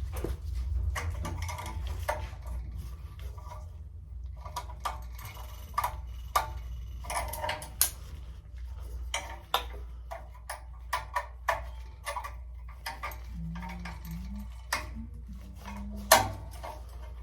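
Scattered small metallic clicks and clinks of hand tools and parts being handled, with a sharper click about sixteen seconds in, over a steady low hum.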